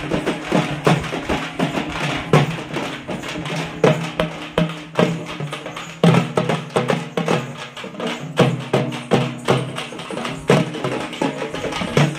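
Several hand-held frame drums beaten together in a fast, driving rhythm, the strikes sharp and ringing.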